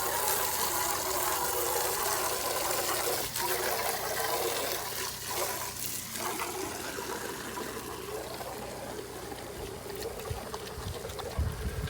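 Water running and trickling steadily, slowly fading toward the end.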